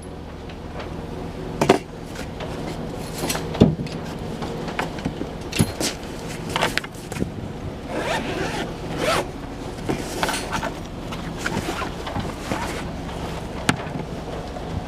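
Rasping, zipper-like scraping and rustling of gear being handled, with sharp clicks scattered throughout, over a steady low hum.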